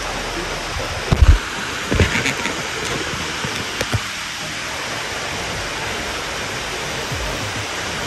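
Steady rush of a mountain stream's water falling over rocks, with a few low thumps in the first four seconds.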